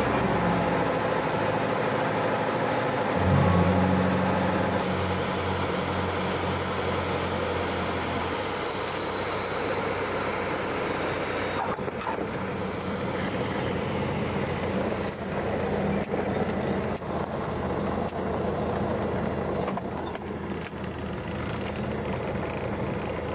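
Single-engine light aircraft's piston engine and propeller, heard from inside the cabin during landing: a steady drone whose low hum rises about three seconds in, then slowly quietens as the plane rolls along the runway, with a few bumps in the second half.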